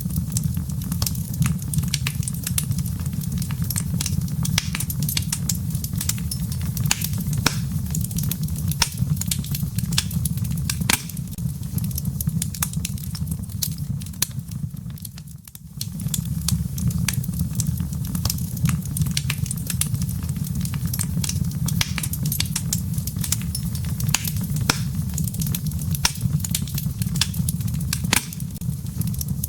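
Wood fire burning in a fireplace: a steady low rumble with dense, sharp crackles and pops. The sound dips briefly about halfway through.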